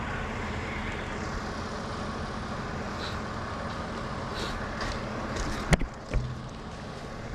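A steady engine or machine running, with two sharp knocks about half a second apart near the end.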